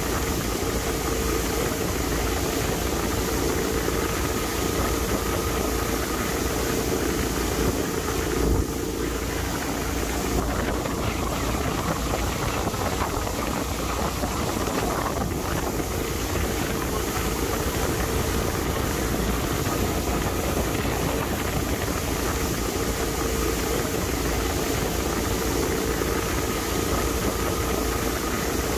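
A 2005 Regal Commodore 2665 express cruiser running under way, its single 320 hp Volvo Penta engine holding a steady pitch, with wind buffeting the microphone.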